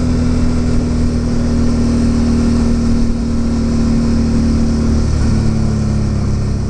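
Suzuki DL650 V-Strom's 645 cc V-twin running steadily under way, with wind and road noise; the engine note drops slightly about five seconds in.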